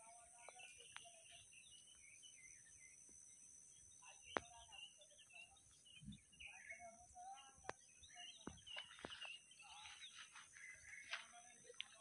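Faint birds chirping over a steady high hiss, broken by a few sharp clicks, the loudest about four seconds in.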